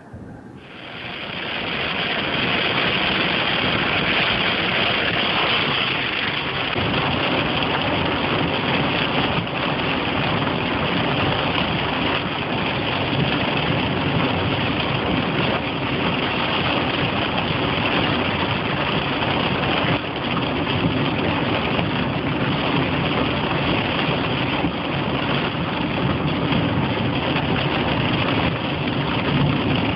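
Heavy rain beating on a car's roof and windscreen, heard from inside the cabin while driving, with engine and road noise underneath. It is a dense, steady hiss that starts suddenly about half a second in.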